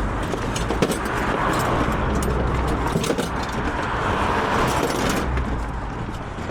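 Motor vehicle on the move: a steady low engine rumble and road noise with many small rattles and clicks, the noise easing slightly about five seconds in.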